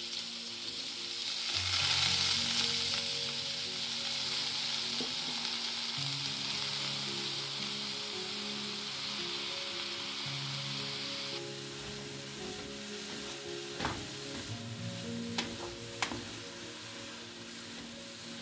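Diced eggplant sizzling as it drops into hot oil in a frying pan, the sizzle loudest a couple of seconds in and easing later. Near the end a wooden spoon knocks and scrapes against the pan a few times as the cubes are stirred.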